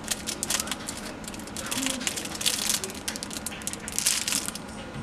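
Clear plastic bag around a handheld remote control crinkling as it is handled, in irregular rustles and crackles.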